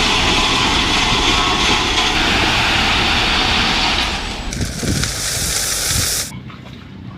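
Loud, steady rumble and hiss of a heavy truck's engine running. The sound shifts about four and a half seconds in and cuts off suddenly near the end.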